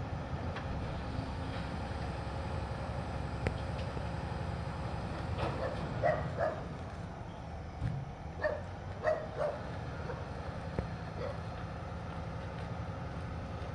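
Autocar ACX front-loader garbage truck's engine running steadily at idle, with a dog barking in two short bursts of a few barks each, about six seconds in and again about nine seconds in.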